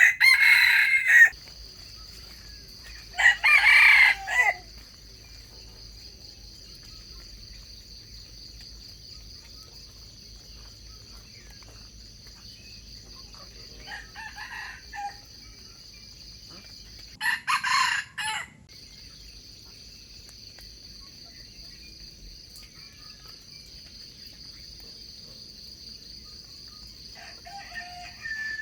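Red junglefowl roosters crowing, five short crows: two loud ones near the start, a fainter one before halfway, a loud one soon after, and a faint one near the end. A steady high insect drone runs underneath.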